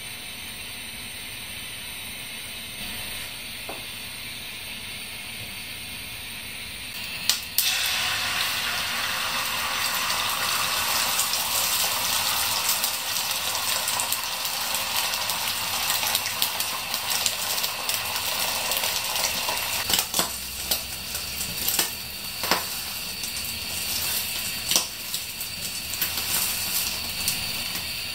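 Beaten egg sizzling in a hot oiled tamagoyaki pan; the sizzle comes in suddenly and loudly about seven seconds in. A few sharp knocks of a wooden spatula against the pan follow later on.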